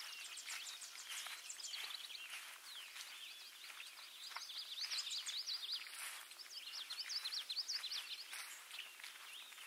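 Several songbirds singing at once, in overlapping runs of quick, high, down-slurred notes and trills.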